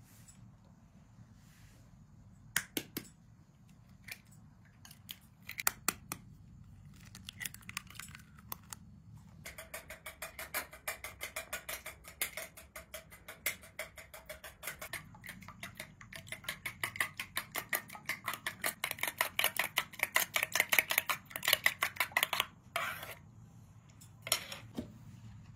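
Eggs being beaten in a bowl with a metal spoon: rapid, even clicking of the spoon against the bowl that goes on for about thirteen seconds and stops abruptly. A few separate sharp knocks come before it.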